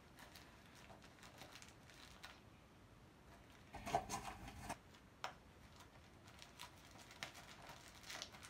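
Faint clicks and rustling of small items being handled and packed into a bag, with a louder clatter lasting just under a second about four seconds in and a sharp click soon after.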